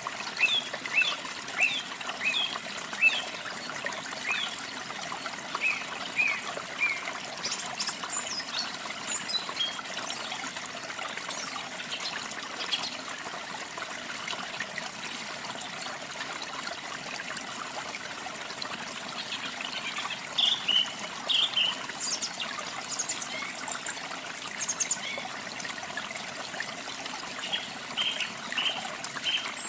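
Water trickling and splashing steadily, with small birds chirping over it in short runs of quick notes.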